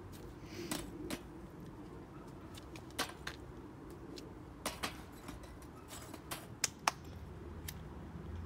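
Fire crackling: scattered sharp pops at irregular intervals, some louder than others, over a faint low hum.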